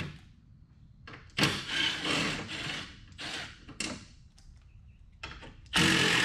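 Cordless drill/driver running in several short bursts, backing 10mm bolts and sheet metal screws out of a car's plastic under-engine splash shield. The longest and loudest burst comes near the end.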